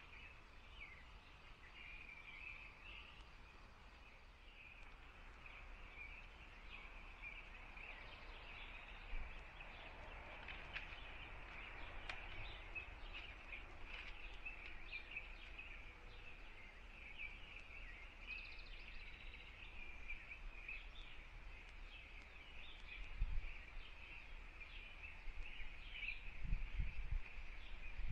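Faint, continuous birdsong: many birds calling and singing at once in woodland, with some low rumbles near the end.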